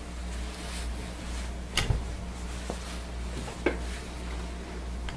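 A few sharp plastic clicks and knocks from hands working the open ink-cartridge cover of a Brother inkjet printer, the loudest about two seconds in, over a steady low hum.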